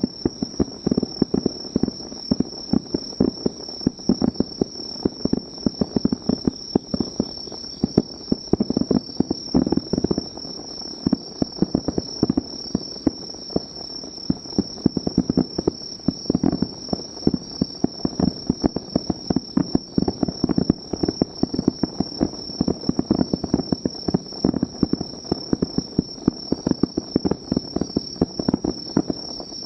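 Fireworks crackling and popping in a dense, irregular run of many small reports per second, with crickets or other insects trilling steadily and high underneath.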